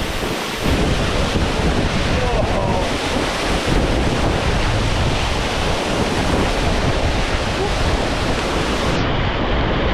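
Waterfall water rushing in a loud, steady noise. The microphone is buffeted by wind or spray, adding a heavy low rumble from under a second in.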